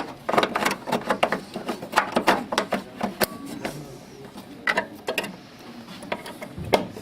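Irregular clicks and taps of hands reconnecting the wiring and handling the parts on a 3D printer's front switch panel. They come quickly for the first few seconds, then more sparsely.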